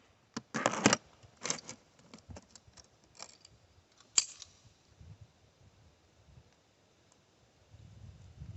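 Metallic clicks and rattles of a pistol and gear being handled and put away, with a sharper single click a little after four seconds. A low rumble builds near the end.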